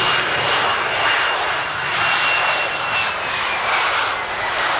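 Jet engines of a Boeing 737-300 airliner running as it rolls along the runway. A steady engine rush carries a thin high whine that slides down in pitch over the last second or so.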